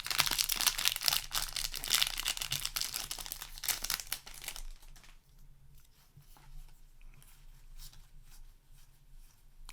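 Foil wrapper of a Magic: The Gathering booster pack being torn open and crinkled, a dense crackling for about four and a half seconds, then fainter scattered rustles and light taps.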